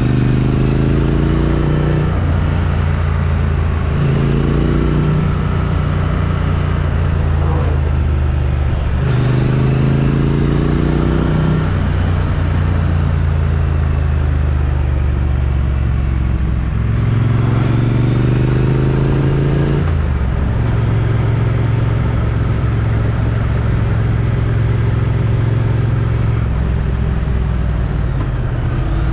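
Triumph Street Twin's 900 cc parallel-twin engine on its stock exhaust, heard from a helmet chin mount while riding. It rises in pitch under acceleration about four times, with gear changes between, then runs at a steady speed, with wind noise throughout.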